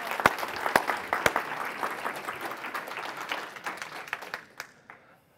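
A roomful of people applauding: dense clapping that thins out and stops about five seconds in.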